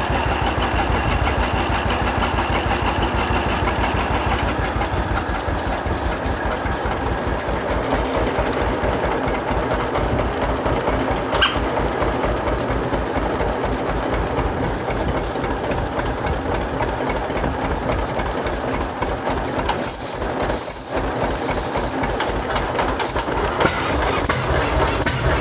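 A 1936 John Deere D's two-cylinder engine being turned over by a flat belt, with a steady rhythmic chugging. Near the end the beat turns into sharper popping as the long-dormant engine begins to fire and smoke.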